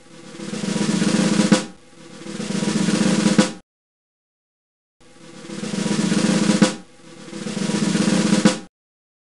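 Snare drum rolls: four rolls, each swelling louder and ending in a sharp hit, played in two pairs with about a second and a half of silence between the pairs.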